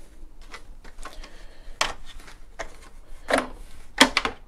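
Hard plastic rubbing and clicking as the adjustable plastic mounting feet of a PIV (positive input ventilation) unit are pushed onto its housing: several short scrapes and snaps, the loudest near the end.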